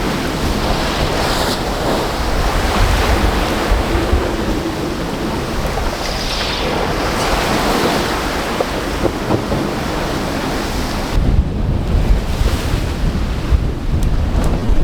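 Sea and wind rushing past a sailboat under way in strong wind, with gusts buffeting the microphone; the buffeting gets heavier and lower in the last few seconds.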